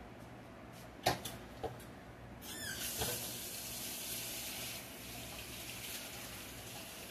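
A couple of sharp knocks, then a tap is turned on and water runs steadily into a sink.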